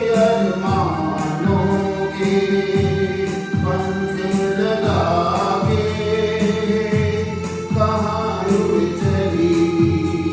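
A Hindi film-style song playing: a sung voice or voices over a steady drum beat with instrumental backing.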